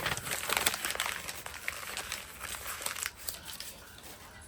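Packaging being crumpled and handled: a dense crinkling crackle that starts suddenly and lasts about three seconds before dying down.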